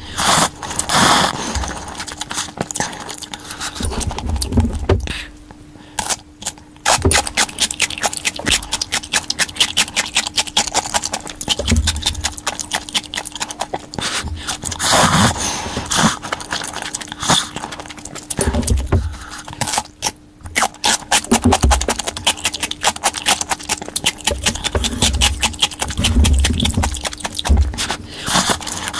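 Close-miked eating of cup noodles: slurping noodles and chewing, with many small wet mouth clicks and louder slurps every few seconds.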